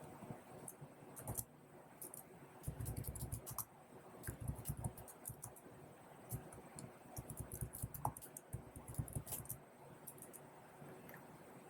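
Computer keyboard being typed on in irregular runs of quick, faint key clicks, with short pauses between bursts, as terminal commands are entered.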